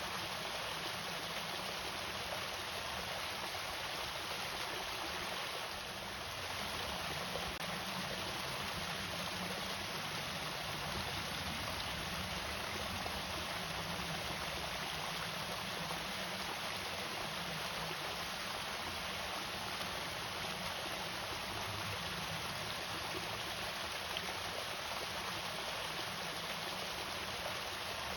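Water pouring steadily over a small irrigation waterfall, a continuous even rush with no pauses.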